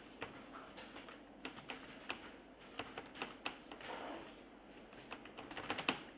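Typing on a computer keyboard: irregular key clicks a few per second, with a quick run of keystrokes near the end.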